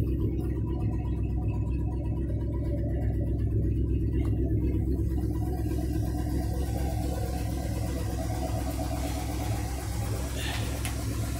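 Square-body GMC C10 pickup engine idling, its exhaust running through newly fitted down pipes: a steady low exhaust note with an even pulse.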